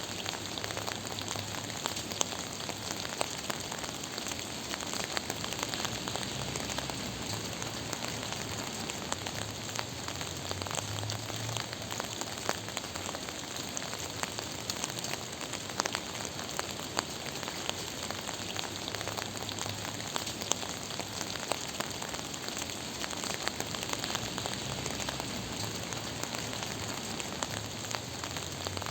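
Steady gentle rain falling on a surface, with many small drops pattering and a faint low rumble underneath.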